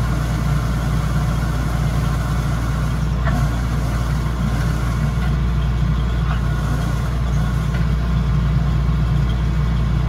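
Kubota DC-105X combine harvester's diesel engine running steadily while the machine stands still, a constant low hum.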